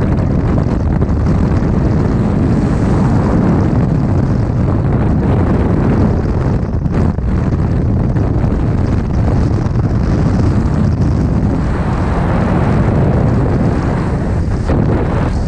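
Loud, steady rush of freefall wind buffeting a skydiver's camera microphone, a dense low rumble.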